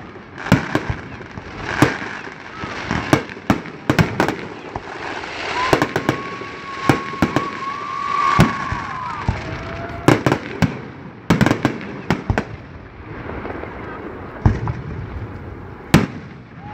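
Aerial fireworks display: shells bursting in a steady barrage of sharp bangs, several close together at times, with haze and crackle between them.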